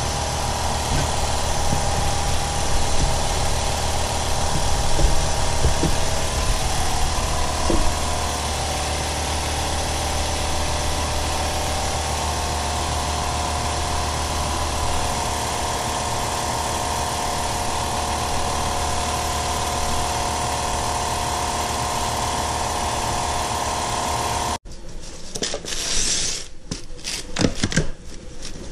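A steady mechanical drone from a running machine, with a few knocks of parts being handled in the first several seconds. About 25 seconds in the drone cuts off suddenly, leaving the rustle and knocks of a cardboard box being handled.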